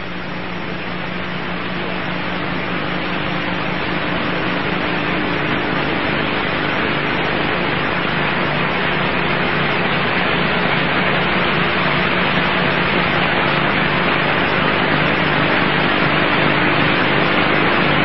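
Steady static hiss with a faint low hum underneath, slowly growing louder.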